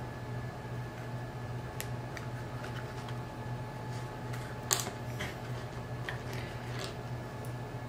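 Hand-stitching leather with a needle and waxed polyester thread: faint scattered clicks and rustles of the needle and thread being worked through the leather, with one sharper click near the middle, over a steady low hum.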